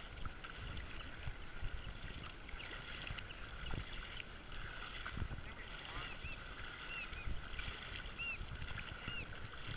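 Shallow water sloshing and lapping close to the microphone, with a steady low wind rumble. A few short, high bird chirps come in the second half.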